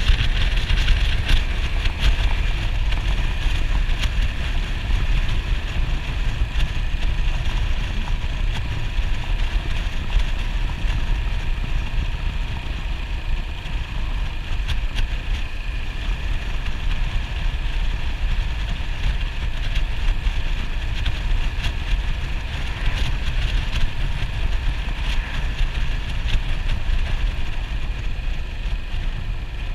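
Yamaha SR400's air-cooled single-cylinder engine running steadily while the motorcycle is ridden, under a heavy low rumble of wind on the microphone.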